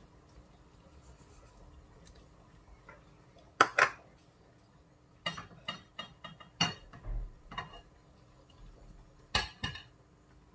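Kitchenware clinking and knocking: a sharp pair of knocks about a third of the way in as a ceramic bowl is set down on the counter, then a run of quick clinks of a spoon against a steel saucepan, and two more knocks near the end.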